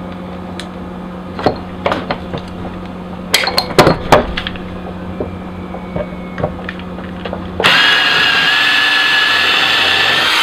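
A few sharp metallic clicks and knocks as the steel dog-proof trap is handled, then nearly eight seconds in a power drill with a 3/16 bit starts and runs steadily with a constant whine, drilling out the rivet that holds the trap's trigger. It stops as the bit gets through.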